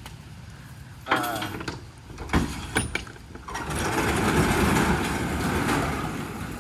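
A box truck's rear roll-up door being opened: a few clanks from the latch and handle, then from about three and a half seconds in the door slides up its tracks with a continuous rolling rattle lasting about three seconds.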